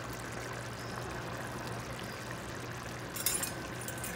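Chicken stew simmering in a stainless steel pot, a steady bubbling hiss over a low hum. A little after three seconds a metal spoon scrapes briefly in the pot as stirring begins.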